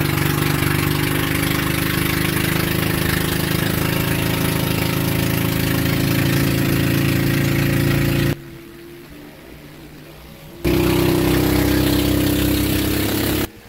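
Engine of a motorised bangka outrigger boat running steadily under way, loud and even. About two-thirds of the way through it drops suddenly to a much quieter hum for about two seconds, then comes back.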